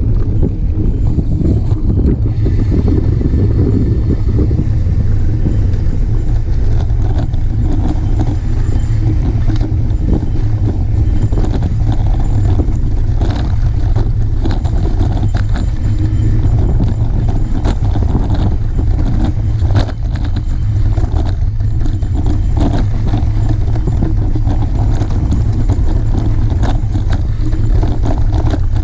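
Mountain bike descending a dirt trail at speed, heard from a camera mounted on the bike: a steady low rumble of wind and tyre noise, with frequent clicks and rattles from the bike jolting over the rough ground.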